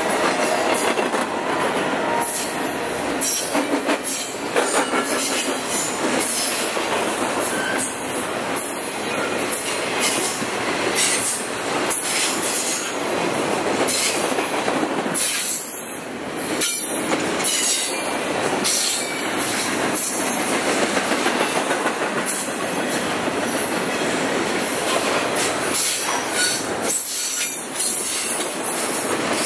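A long train rolling past close by at speed: a steady, loud rushing clatter of steel wheels on the rails, with brief dips and clacks as the cars go by.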